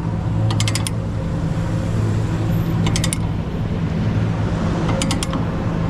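Ratchet chain binder being cranked to tighten a tie-down chain: a quick run of ratcheting clicks about every two seconds. A steady low engine hum runs underneath.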